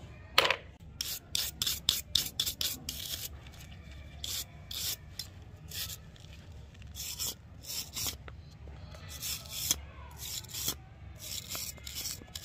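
Short, irregular rasping strokes of a hand tool scraping across the rusty metal frame of an antique revolver, about two to four strokes a second.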